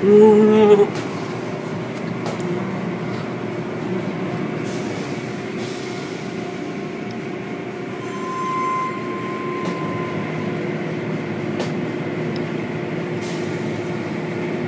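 Automatic car wash machinery running: a steady hum with spraying water and foam. It opens with a short loud call, and a faint steady whine comes in for about two seconds midway.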